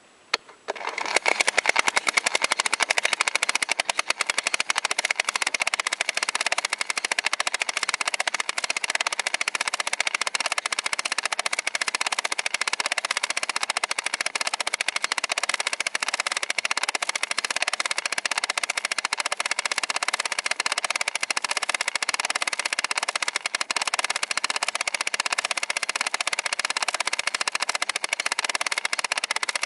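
Home movie viewer running film: its mechanism clatters in a fast, even stream of clicks, like a drum roll. It starts about a second in and holds steady.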